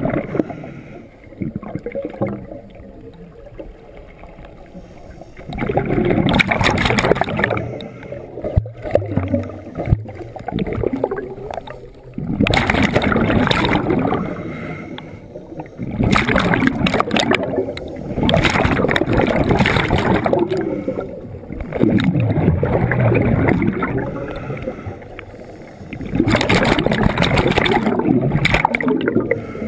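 Scuba divers' exhaled breath leaving a regulator as bursts of bubbles, heard on an underwater camera. There are about six bubbling bursts of two to three seconds each, with quieter gaps between them.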